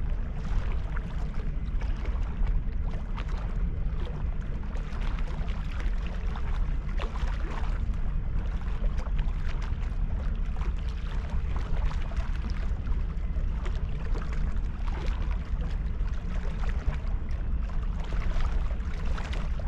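Wind rumbling steadily on the microphone, with small estuary waves lapping and splashing against the bank in many short, crackling splashes.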